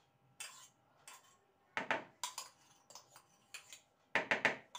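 Steel spoon clinking and scraping against a small steel cup as crushed garlic is scraped out into a mixing bowl: a scatter of sharp taps, with a quick run of louder knocks near the end.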